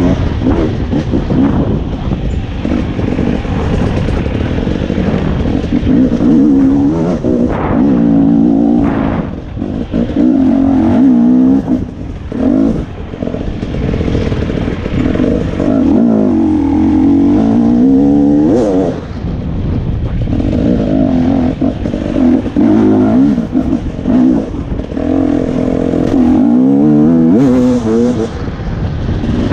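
Off-road dirt bike engine revving up and down as the rider opens and closes the throttle through the turns, with short drops in engine note several times, heard up close from on the bike.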